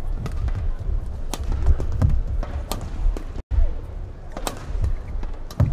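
Badminton rally: about five sharp racket strikes on a shuttlecock, roughly one to two seconds apart, over the steady murmur of an arena crowd. The sound cuts out for an instant just past halfway.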